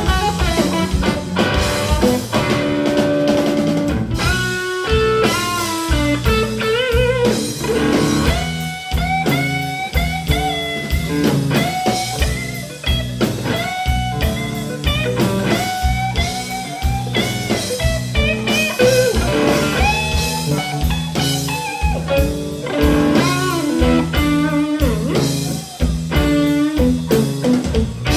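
Live blues trio playing an instrumental passage: an electric guitar plays a lead line of sustained, bending notes over bass guitar and drum kit.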